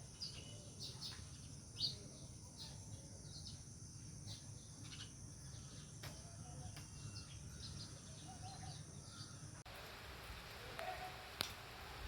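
House sparrows chirping: a run of short, high chirps, several a second, over a low steady hum. About ten seconds in the background changes suddenly, the chirps thin out, and a single sharp click follows.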